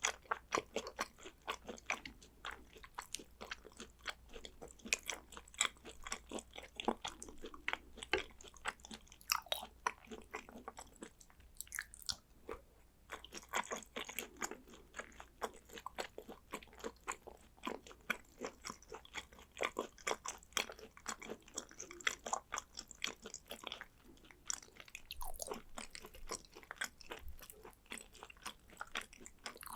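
Close-miked chewing of thin-sliced raw Korean beef and sea urchin roe: a rapid run of mouth clicks and smacks, with a short pause about twelve seconds in.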